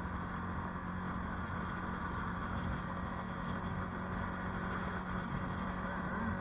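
ATV engine running at a steady pitch while riding, heard from on board, with tyre and wind noise.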